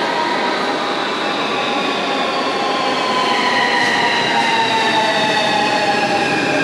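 Siemens Desiro RUS 'Lastochka' electric train pulling into a station platform. It runs loud and steady on the rails, with several whining tones that slowly fall in pitch as it slows.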